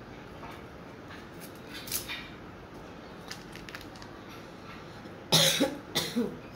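Two loud coughs near the end, over faint wet clicks of raw chicken being trimmed on the curved blade of a boti.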